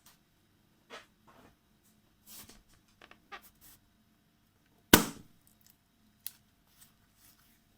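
A rubber balloon popping once with a sharp bang about five seconds in, preceded by a few faint brief rustles and clicks and followed by a smaller click.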